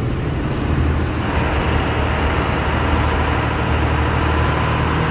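Diesel truck engine running with a steady low hum, heard from inside the cab as the truck drives slowly. A broader noise comes in about a second in.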